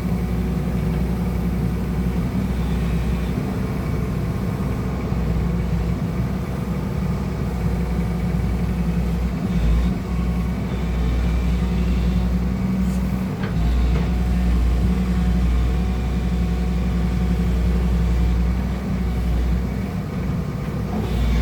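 Excavator's diesel engine running steadily with a low, continuous drone, its level dipping briefly a couple of times.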